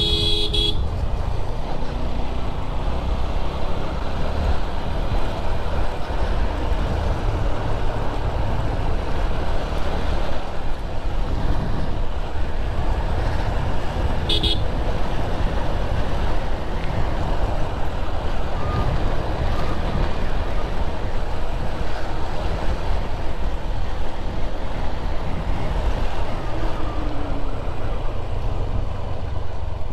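Motorcycle on the move, heard from the rider's own bike: steady engine and wind rush on the microphone. A short horn toot sounds at the very start and another about halfway through.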